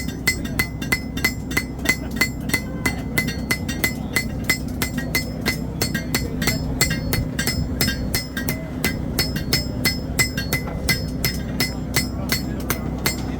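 Forging hammer striking a knife blade on an anvil in quick, even blows, about four a second, each with a bright metallic ring, as the blade's bent edge is worked straight. A steady low hum runs under the blows.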